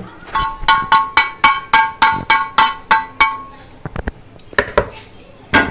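A container tapped about a dozen times in a quick even run, about four taps a second, each tap ringing with a clear pitch, as powder is knocked out of it over a mixing bowl. A few softer, scattered knocks follow near the end.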